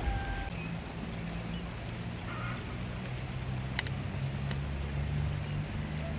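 A low, steady mechanical hum with two sharp clicks a little under a second apart just past the middle.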